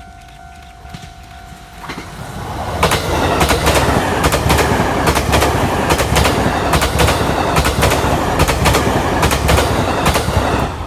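E257-series electric train passing close by, its wheels clacking rapidly and rhythmically over the rail joints. It arrives about two seconds in, after a faint steady tone, and stays loud until near the end.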